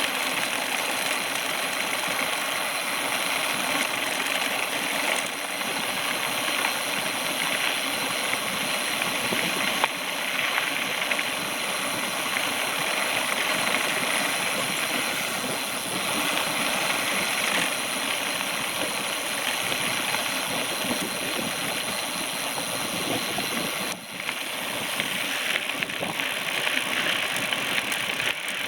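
Steady rushing noise from riding a bicycle: wind buffeting the microphone and tyres rolling over the ground, with a brief dip about 24 seconds in.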